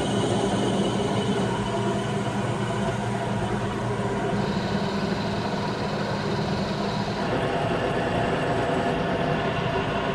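Metal lathe running steadily, its motor and gears humming, while a cutting tool faces and turns a crank web counterweight. A higher tone joins for about three seconds midway.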